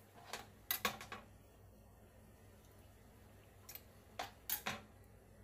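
Knife cutting lemon slices on a cutting board: a few sharp taps near the start and another quick run of taps about four seconds in.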